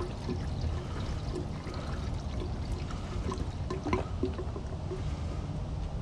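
Diesel fuel pouring in a steady trickle from a gas can into a diesel heater's fuel tank.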